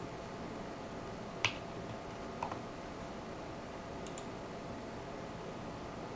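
Steady whoosh of the ASUS GTX580 DirectCU II's twin cooling fans, run in manual mode at a raised fan speed. A sharp click about a second and a half in and a softer double click about a second later are mouse clicks stepping the fan speed up.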